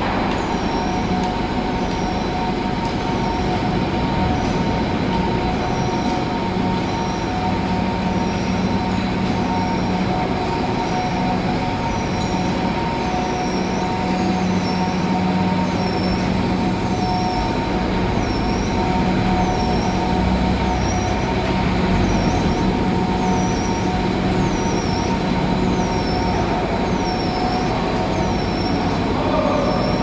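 Power cable extrusion line running during a test run on 4 mm² cable: a steady machine hum with a short, high squeak repeating about once a second.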